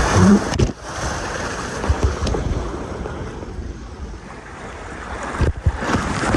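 Rushing water and air on the microphone during a ride down a water slide, ending in a splash into the pool about a second before the end.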